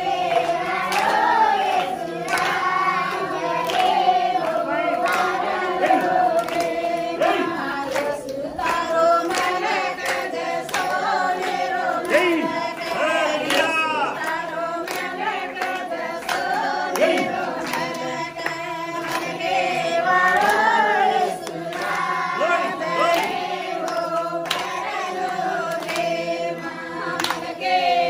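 A group of people singing a Banjara devotional song together, with no instruments heard, while steady hand claps keep time for the dance.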